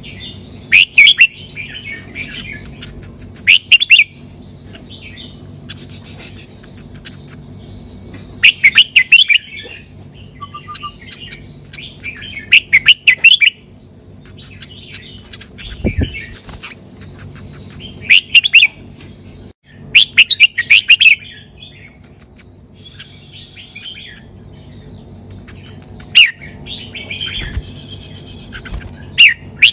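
Red-whiskered bulbul singing: loud, quick warbling phrases about a second long, repeated every few seconds.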